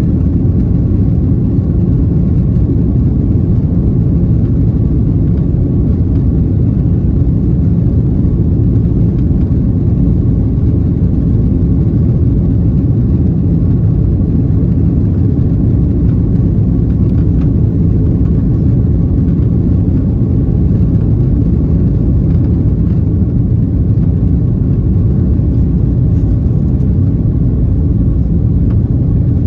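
Steady, unchanging low rumble of an airliner's engines and airflow, heard inside the cabin.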